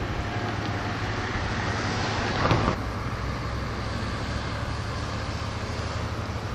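Steady road traffic noise, with one vehicle passing close by about two and a half seconds in.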